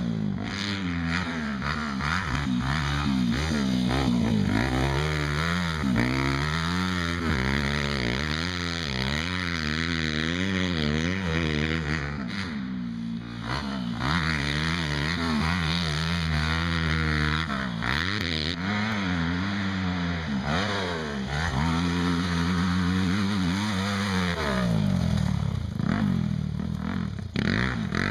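Yamaha YZ250F four-stroke single-cylinder motocross bike riding a dirt track, its engine revving up and down again and again as the throttle opens and closes. The sound dips briefly about halfway through.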